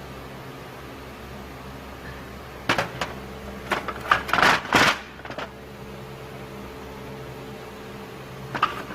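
A cluster of sharp metallic clanks and clinks between about three and five seconds in, and one more near the end, over a steady low hum: metal tools and parts being handled during engine work.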